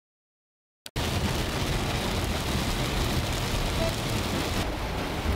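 Heavy rain on a car driving along a wet highway, heard from inside the car: a steady hiss of rain and tyre spray on the road, starting about a second in after silence.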